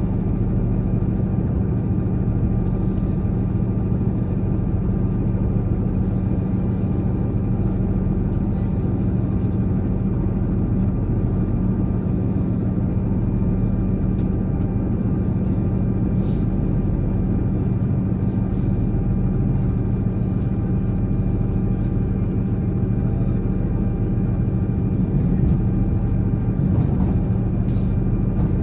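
Steady drone of a moving vehicle: an even engine hum with a constant low tone over running noise.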